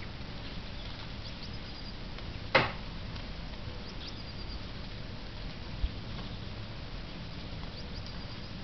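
Fieldfares in a feeding flock giving a few short, faint high calls now and then over steady background noise, with one sharp loud knock about two and a half seconds in.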